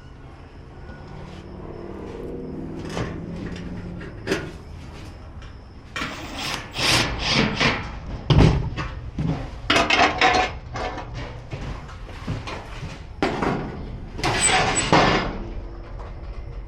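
Gas grill parts being handled and fitted by hand: a string of knocks, rattles and scrapes, sparse at first and busier from about six seconds in, with a brief high ring near the end.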